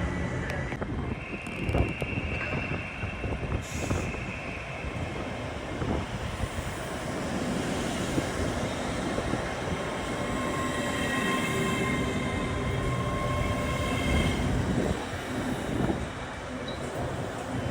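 A train moving on the rails, with a low rumble and repeated knocks from the wheels, and high drawn-out wheel squeal, once a second or so in and again about two-thirds of the way through.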